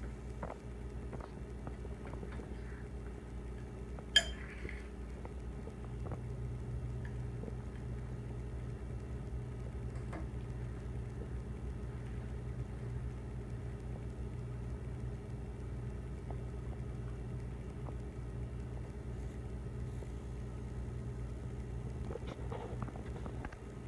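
Small table-eating sounds: a single sharp, ringing clink of a metal spoon against the bowl about four seconds in, then a few faint taps, over a steady low hum in the room.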